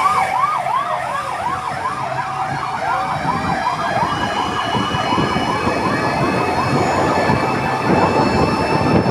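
Fire truck sirens sounding in a fast yelp, rising and falling about three times a second, with a steady siren tone alongside. From about halfway several sirens overlap over a growing low rumble.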